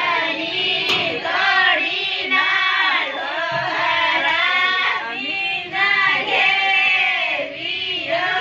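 A group of women and girls singing a Bhil tribal Holi gote folk song together, voices rising and falling in short arched phrases without a break.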